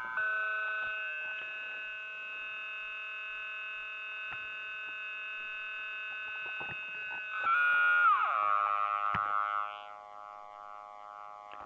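Electronic noise machine sounding a steady drone of many held tones that all slide down in pitch together about eight seconds in, then hold at the lower pitch, with faint scattered clicks.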